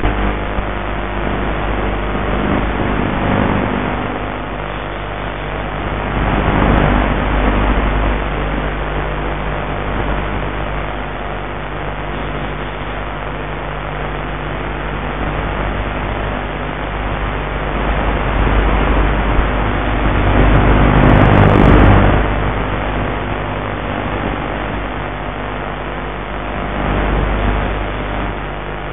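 Mini Talon's electric pusher motor and propeller running steadily at cruise, heard from on board with a rushing of wind that swells about 7 seconds in and again about 21 seconds in.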